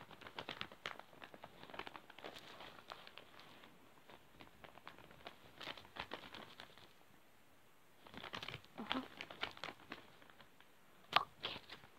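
Close crinkling and tapping handling noises right at the microphone, coming in irregular clusters of small clicks and crackles with a lull in the middle. There is one sharper, louder click near the end.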